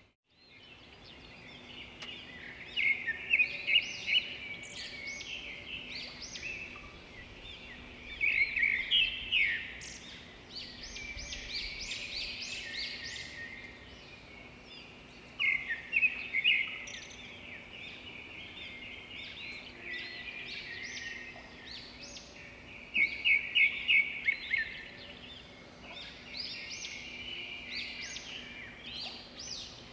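Birds chirping and singing, with a loud song of rapid repeated notes that comes four times, roughly every seven seconds.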